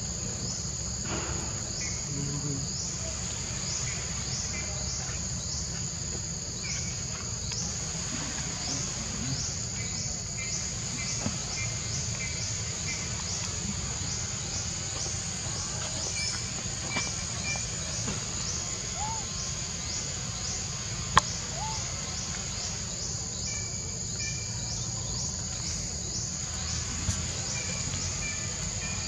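Steady high-pitched insect chorus with a rhythmic chirp about twice a second. Short bird chirps come in now and then, and a single sharp click sounds about two-thirds of the way through.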